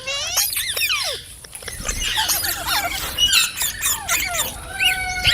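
Indian ringneck parakeet chattering in a quick run of squeaks, chirps and whistled glides, ending in a held, level whistled note.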